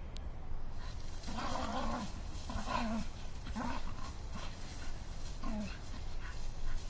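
Two terriers playing rough in dry leaf litter, one giving four short growls; the first, about a second in, is the longest. The leaves rustle under their scuffling.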